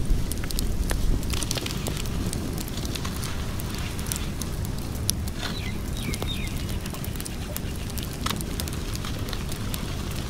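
Wood fire crackling with frequent sharp pops over a steady low rumble. A short high warbling sound comes about halfway through.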